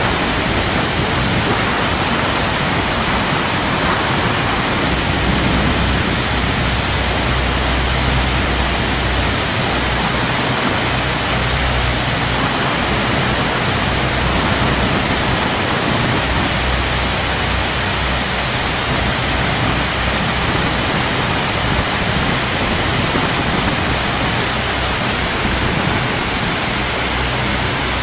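Large waterfall: a steady, dense rush of falling water with a low rumble underneath.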